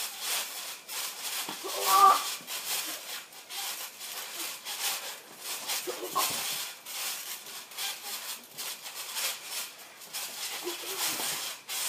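Boys' wordless yells and grunts during play-wrestling, the loudest about two seconds in and shorter ones around six and eleven seconds. Underneath are frequent knocks and rattles of bodies moving and landing on a trampoline.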